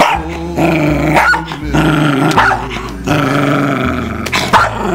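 A cockapoo growling in long stretches, broken by a few sharp barks, the loudest near the end: the dog is guarding a wrapped present from a reaching hand.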